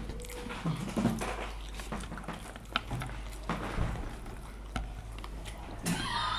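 People eating: scattered light clicks and knocks of utensils against plates, over a low steady hum.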